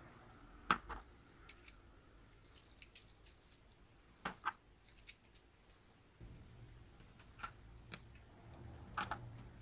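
Small steel planetary gears and a gear carrier from a cordless drill's gearbox clicking and clinking as they are handled and set down: a sharp click about a second in, two close together a little past four seconds, another single one, then a pair near the end.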